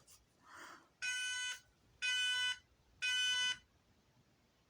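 Fire alarm speaker sounding the temporal-three evacuation tone: three half-second electronic tones a second apart, the alert that comes before a voice evacuation message.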